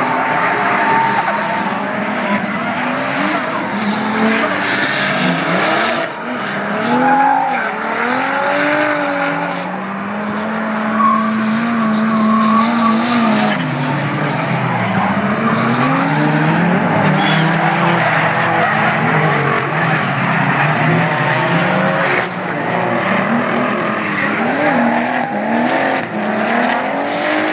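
Drift cars sliding sideways with tyres screeching, their engines revving up and down in overlapping rising and falling notes as they are held at high revs through the corners.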